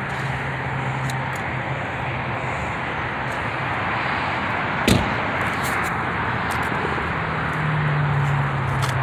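Steady outdoor noise with wind rush on the phone microphone, a low steady hum near the start and again near the end, and one sharp knock about five seconds in.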